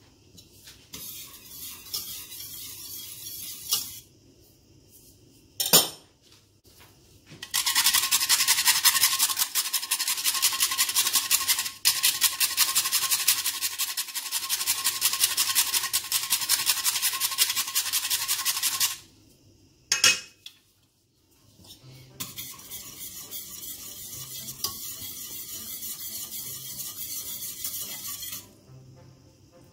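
Whole nutmeg being grated on a small metal grater over a pot of béchamel sauce, in fast rasping strokes. It comes in three spells, the middle one longest and loudest, with two sharp taps in between.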